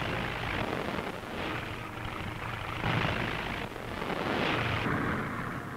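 Noisy roar of a catapult-launched floatplane's radial engine at full power, swelling and fading three times.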